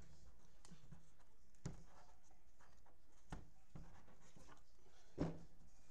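Light handling noises of trading cards and hard plastic card holders on a desk: faint rustles and about five short taps, the loudest about five seconds in.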